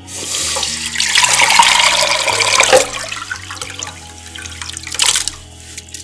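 Water poured from a glass bowl into an empty nonstick pot, splashing loudly for nearly three seconds. About five seconds in, rice tipped from the bowl lands in the water with a shorter splash.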